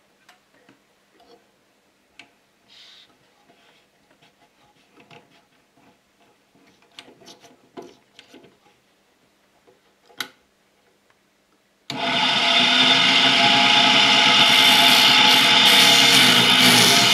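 Faint clicks and knocks of the cane being set into a Chevis bassoon cane-profiling machine, then about 12 s in the machine is switched on and runs loud and steady, with a rasping, whirring noise as it shapes the cane.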